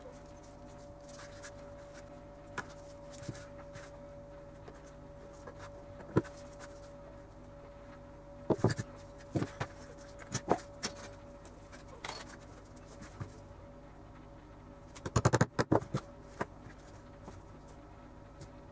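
Scattered taps, knocks and clicks of tools and a leather sheath piece being handled on a tabletop, with a quick run of taps about fifteen seconds in, over a faint steady hum.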